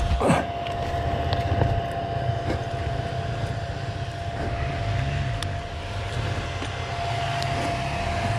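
Geon Dakar GNX 300 enduro motorcycle engine running at low, uneven revs, with a thin steady whine over it.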